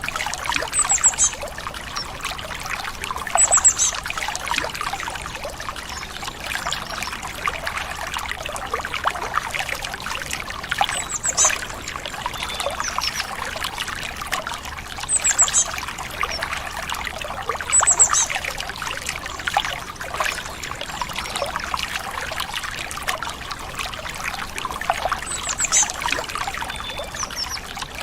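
A small stream trickling and burbling steadily over stones, with short, high bird chirps every few seconds.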